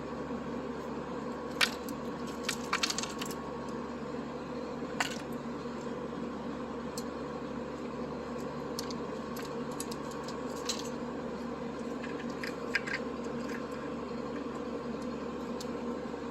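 Gear test rig running a greased 3D-printed PC+ spur gear at speed: a steady mechanical hum with scattered sharp ticks and clicks, the loudest about a second and a half in and a quick cluster around three seconds.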